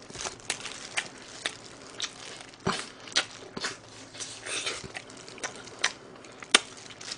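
Close-miked biting and chewing of crispy rice-batter fried chicken: a run of short, irregular crunches.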